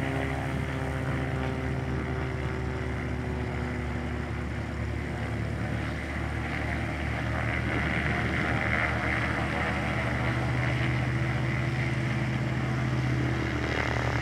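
Cessna 206 amphibian's six-cylinder piston engine and propeller running steadily at taxi power as the floatplane rolls and turns on the ground; the engine grows a little louder in the second half.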